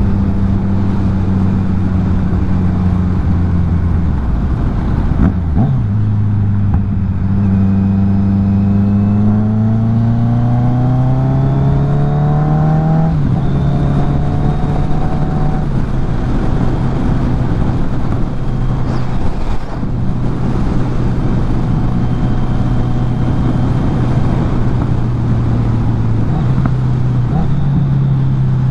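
Kawasaki Z900 inline-four engine under way: running steadily, dropping in pitch about four seconds in, then revs rising smoothly for several seconds, a gear change near the middle, and steady cruising after it.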